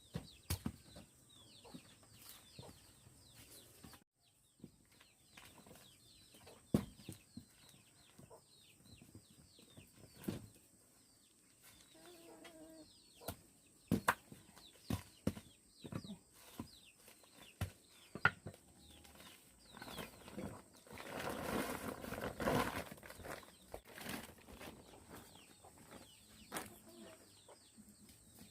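Chickens clucking, with scattered knocks and rustling; a louder stretch of rustling comes about two-thirds of the way through.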